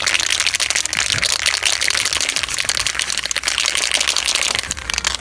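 Two aerosol spray paint cans shaken at once, the mixing balls inside rattling in a fast, continuous clatter to mix the paint before spraying.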